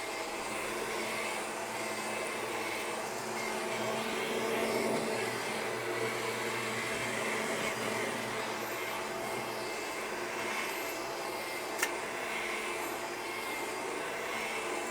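Upright vacuum cleaner with a power-driven brush roll running steadily over carpet, picking up debris. A single sharp click sounds near the end.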